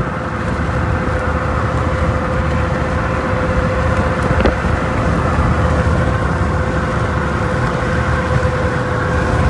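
Road and engine noise inside a moving car: a steady rumble of tyres and wind with a constant droning hum.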